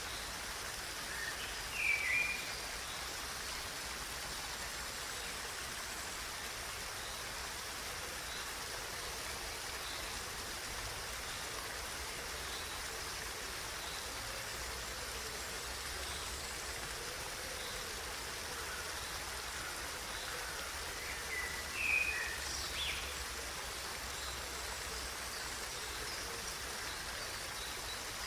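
Steady rushing of running water, like a stream. A bird gives a short chirping call twice, about two seconds in and again near twenty-two seconds.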